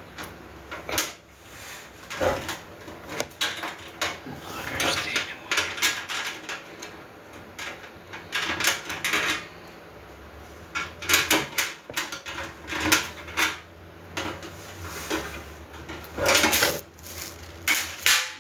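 Metal grill parts clinking, rattling and scraping against each other while a bolt or screw is turned by hand during assembly, in irregular bursts with a few longer scrapes.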